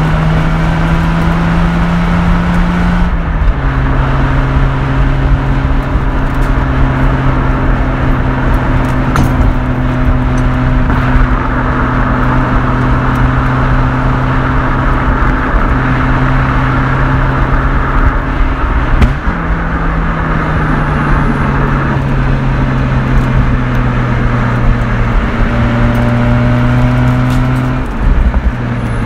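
Mazda RX-8's naturally aspirated two-rotor Renesis rotary engine running through its muffler under load while driving. Its pitch steps down about three seconds in, holds steady, then jumps up near nineteen seconds and slowly falls.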